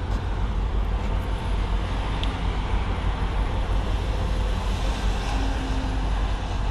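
Cat 568 shovel logger's diesel engine running steadily, a constant low rumble.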